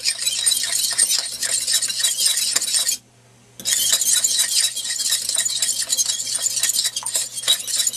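Metal fork beating a raw egg in a ceramic bowl: rapid clinking of the fork against the bowl, with a brief pause about three seconds in.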